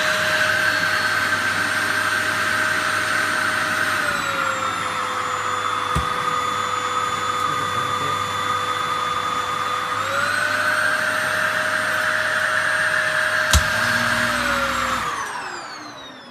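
Sharp EC-PX600-P cyclone vacuum cleaner running with a steady motor whine and rushing air. The pitch dips slightly about four seconds in and comes back up around ten seconds. Near the end there is a click, and the motor winds down with a falling whine as it is switched off.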